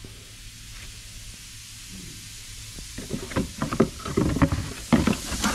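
Cardboard box rustling and light knocks as a new thermostat housing is handled over it, starting about three seconds in, over a steady faint hiss.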